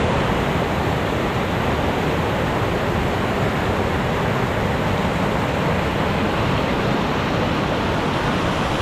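Rushing water of a creek running high after rain: a steady, even hiss with no breaks.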